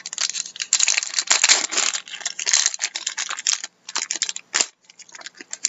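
A trading-card pack wrapper being torn open and crinkled: a dense crackle for about two seconds, then scattered crinkles and clicks as the cards are handled.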